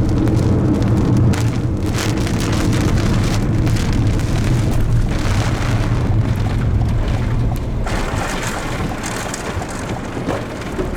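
Rain falling steadily, with a steady low rumble underneath that weakens after about eight seconds.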